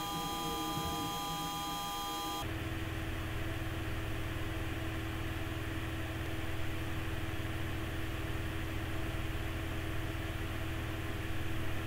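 Steady low hum and hiss of background noise. Several faint steady high tones sound over it for the first two and a half seconds and then cut off abruptly.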